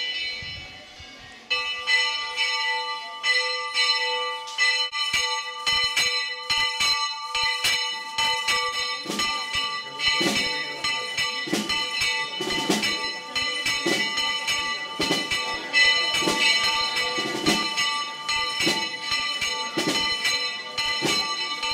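Church bells ringing fast, strike after strike with the tones hanging on between them. A deeper stroke joins roughly once a second from about nine seconds in.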